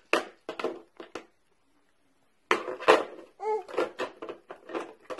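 Plastic toys clattering on a baby walker's tray, mixed with a baby's short babbling sounds. They come in quick bursts, with a pause of about a second in between.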